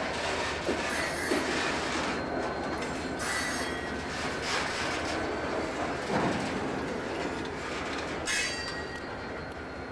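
Slow-moving freight train cars rolling on jointed track. Wheels squeal in short bursts about a second in, around three seconds and around eight seconds, over a steady rumble, with a heavier clank about six seconds in.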